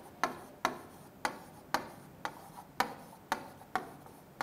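Marker tip clicking against a whiteboard while words are written by hand: sharp taps about twice a second.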